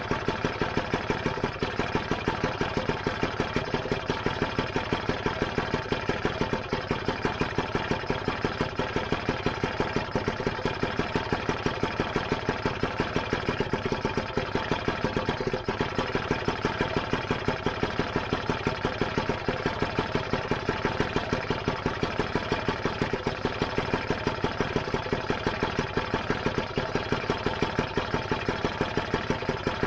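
Lambretta GP single-cylinder two-stroke engine idling steadily with an even, fast beat, running on a kick start after its rebuild.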